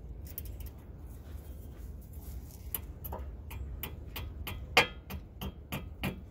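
Hammer tapping a cotter pin through the stud of a new outer tie rod end: light metallic ticks at first, then sharp metal-on-metal strikes about three a second from about halfway, the loudest near the end.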